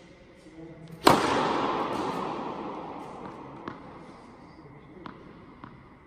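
Tennis serve: the racket strikes the ball with one sharp crack about a second in, its echo dying away slowly through the hall over a couple of seconds. A few faint light taps follow later.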